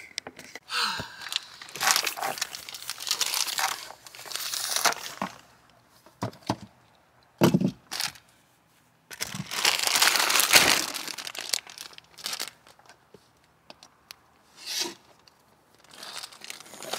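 Bags and belongings being shoved and shifted around in a packed car trunk: irregular bursts of rustling handling noise with a few short knocks.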